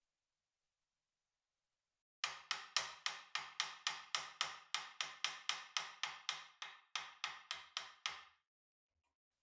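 Small hammer tapping steadily on the rusted metal crank arm of a meat grinder, about three or four even blows a second for some six seconds, each with a short ring. The blows start about two seconds in and knock the stuck crank arm loose from its shaft.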